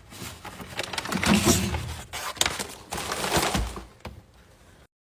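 Cleaning and handling noises at a refrigerator: rough rubbing and swishing with a few sharp knocks, fading after about four seconds and cutting off abruptly just before the end.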